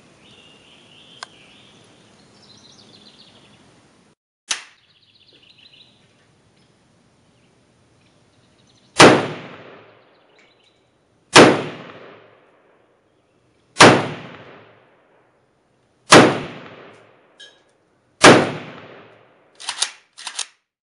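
Five single shots from a Norinco MAK-90 semi-automatic AK rifle in 7.62x39mm, spaced about two and a half seconds apart, each with a long echoing tail under the range's roof. A smaller click comes about four seconds in, and a few quieter cracks follow the last shot near the end.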